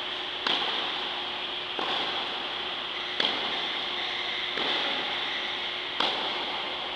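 Tennis racket strings striking the ball in a forehand rally drill on an indoor court: five sharp hits about a second and a half apart, every other one louder. A steady hiss runs underneath.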